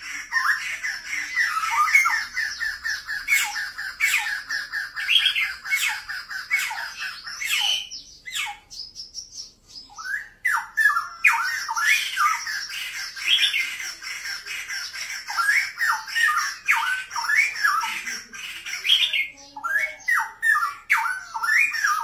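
Red-whiskered bulbul singing in its cage: fast runs of short, chirpy notes that rise and fall, breaking off briefly about a third of the way through and then starting again. A steady faint high whine runs underneath.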